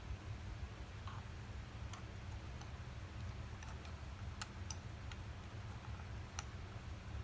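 Scattered light clicks and taps as small wooden animal figures are set one by one into a wooden toy ark, over a steady low hum.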